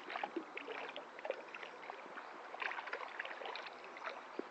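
Shallow water running, broken by irregular small splashes of tilapia thrashing in a net at the surface.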